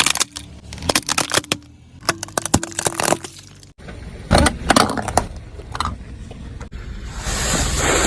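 Things cracking and crunching under a car tyre: quick runs of sharp cracks, in short clips cut together. About seven seconds in a loud hiss starts.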